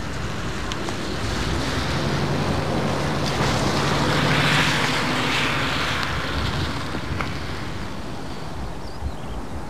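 A car passing on a wet road: tyre hiss and spray with a low engine hum swell to a peak about halfway through, then fade away.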